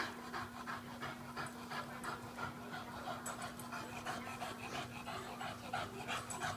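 A dog panting rapidly and steadily, about four to five breaths a second, over a steady low hum.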